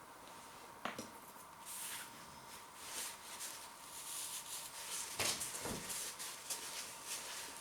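A person chewing soft food close to the microphone: scattered wet mouth clicks and soft crackles, a little louder in the second half.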